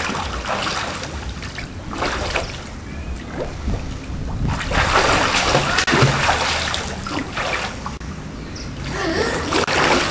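Swimming pool water splashing and sloshing as swimmers move and turn in it, swelling and fading in uneven bursts.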